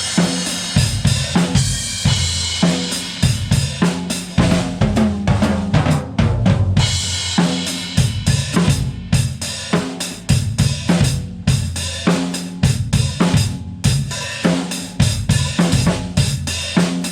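Tama Superstar Hyperdrive Maple drum kit played freely, with a Tama Starphonic metal snare, kick drum, hi-hat and Meinl Classics cymbals: a steady run of drum hits and fills under cymbal wash, with the cymbals dropping out briefly a few times.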